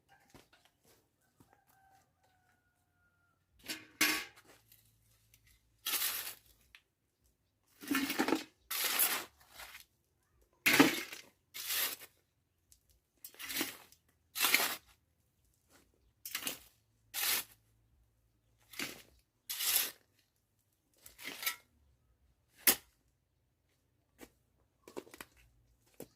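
A series of short scraping, tearing strokes from hand building or demolition work, about one a second, some falling in quick pairs or triples.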